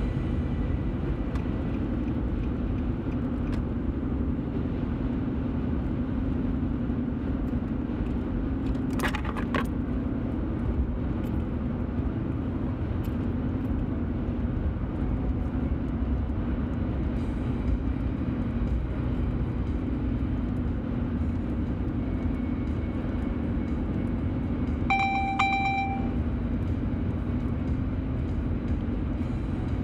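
Steady car road noise heard inside the cabin while cruising on a freeway: a constant low rumble of tyres and engine. A short crackle comes about nine seconds in, and a brief pitched beeping sounds a few seconds before the end.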